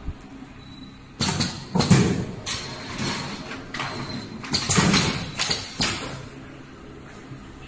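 Automatic pouch filling machine at work: a run of loud, irregular hissing and clattering bursts from about a second in until about six seconds, over a steady low machine hum.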